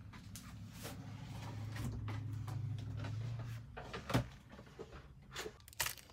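Scattered clicks and knocks of pennies being handled on a wooden workbench, over a low hum that stops about three and a half seconds in. The sharpest knock comes about four seconds in, and a quick cluster of clicks comes near the end.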